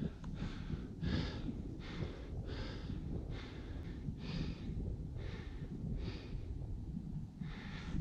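Rhythmic noisy swishes, roughly one to two a second, from the hunter wearing the camera, over a low rumble of wind on the microphone.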